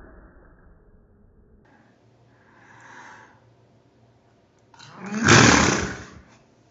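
A woman sneezes with no lower denture in. A softer breath comes about three seconds in, then one loud, blasting sneeze about five seconds in that lasts roughly a second.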